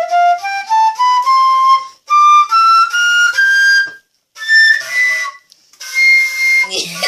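Flute played in short runs of notes climbing stepwise up a scale, each run starting higher than the last, then one long breathy high note near the end.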